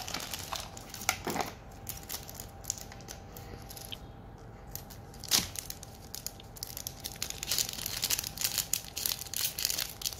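A thin plastic foil wrapper from a toy blind packet crinkling and tearing as it is pulled open by hand, with scattered crackles that grow denser in the second half and one sharper click about five seconds in.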